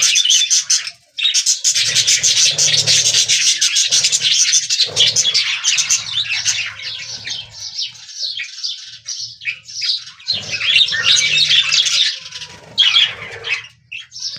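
Budgies chirping and chattering in a nest box: a dense, almost unbroken run of rapid high chirps that breaks off briefly about a second in, with a low hum under parts of it.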